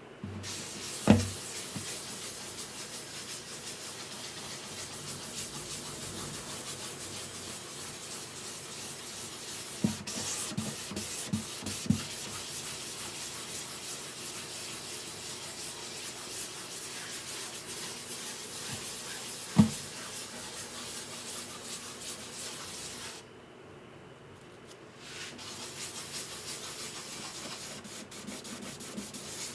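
Sanding on the guitar's wood: a steady rubbing hiss that stops for a couple of seconds near the end, with a few sharp knocks of the tool or guitar being handled.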